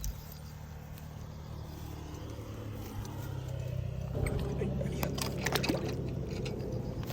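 An engine running steadily with a low drone, getting louder and rougher about four seconds in, with a few sharp clicks near the end.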